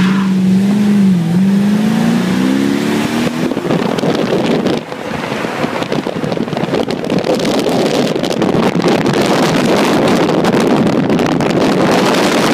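Mercedes-Benz CLS 63 AMG V8 accelerating, its engine note climbing steadily in pitch for the first few seconds, then a loud steady rush of engine and wind noise, with a short dip about five seconds in.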